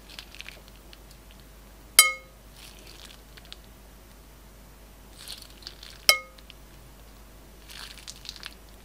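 Glitter slime squeezed out of a plastic piping bag: soft sticky crackling and bag crinkling in a few short spells. Two sharp ringing clinks about four seconds apart are the loudest sounds.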